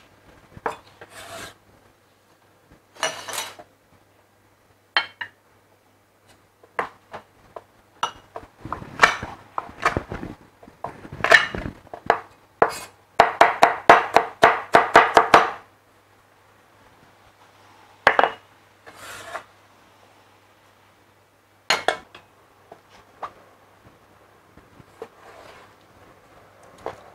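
Chinese cleaver knocking and scraping on a wooden chopping board, with scattered single cuts. Midway through comes a fast run of chops, about five a second, as garlic is minced.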